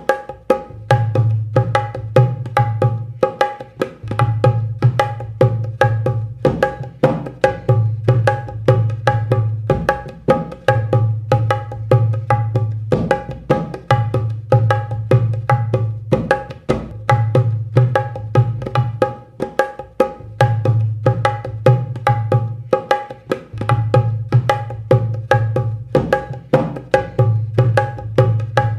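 Dholak playing a Rajasthani ghoomar rhythm loop: fast, dense strokes on the treble head over deep bass-head strokes in a pattern that repeats every two to three seconds.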